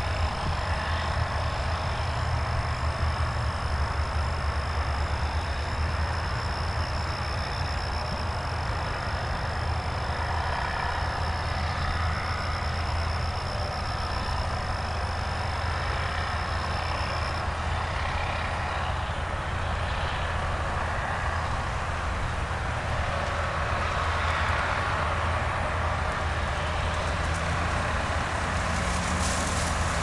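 A steady low mechanical drone with an even hiss over it, and a thin high whine that cuts off a little past halfway.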